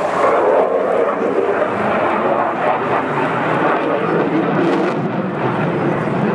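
F-16 fighter jet's single turbofan engine heard in flight as it manoeuvres overhead: a loud, steady rushing jet noise.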